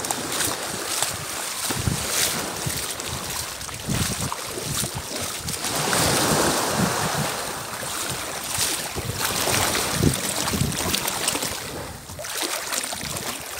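Small sea waves lapping and washing in shallow water at the shoreline, louder for a moment near the middle, with wind buffeting the microphone.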